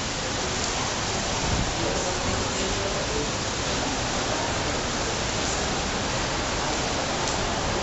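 Steady, even hiss at a constant, fairly loud level, with no distinct events.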